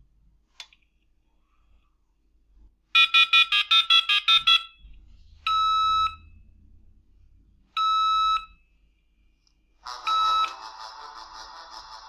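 A dial-up modem tone-dials a phone number: a quick run of about ten touch-tone beeps. Then the called mobile phone rings, a steady beep under a second long repeated about every two seconds, three times. A buzzy noise follows the last ring.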